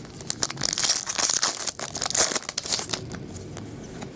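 Foil wrapper of a football trading-card pack being torn open and crinkled by hand. It makes a dense crackling for about three seconds, then eases off near the end.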